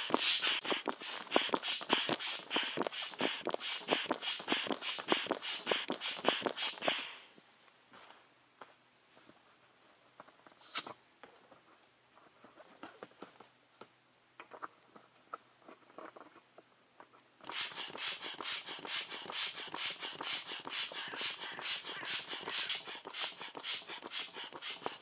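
Foot pump inflating a PVC inflatable rowing boat: quick, even whooshing pump strokes. They stop for about ten seconds, broken by one sharp click, then start again.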